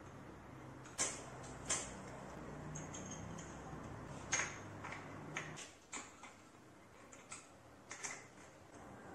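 Scattered sharp clicks and taps of hand tools and small metal bicycle parts being handled during work on a fork and headset, over a low steady hum that stops a little past halfway.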